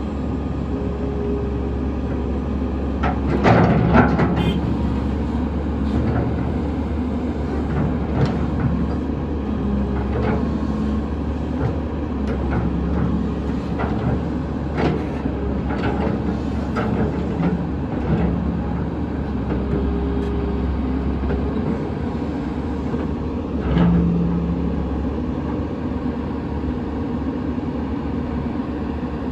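Heavy hydraulic excavator's diesel engine running steadily, with intermittent metallic clanks and knocks; the loudest come about four seconds in and again about 24 seconds in.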